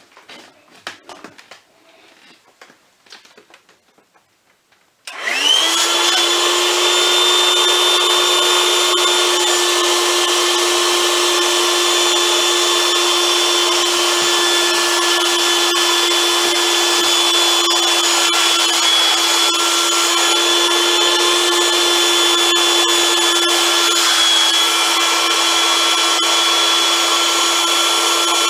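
A few faint clicks and rustles, then about five seconds in an electric air pump starts and runs steadily at a constant pitch, inflating a vinyl inflatable pillow.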